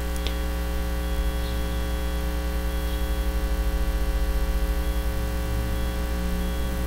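Steady electrical mains hum with its stacked overtones and a faint hiss, picked up by the recording setup, with one faint click just after the start.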